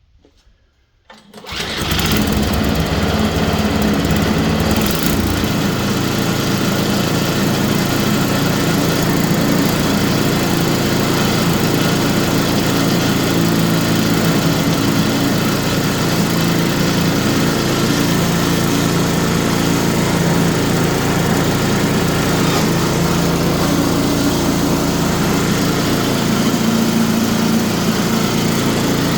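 MTD snowblower's small single-cylinder engine starting about a second and a half in, then running steadily, started up again after repair.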